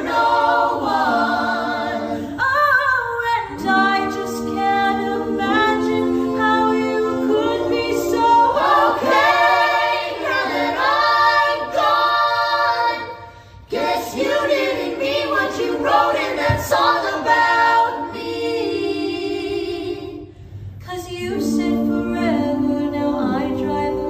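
A family vocal group of adults and children singing a cappella in harmony, voices only with no instruments. The singing breaks off briefly about halfway through and again near the end.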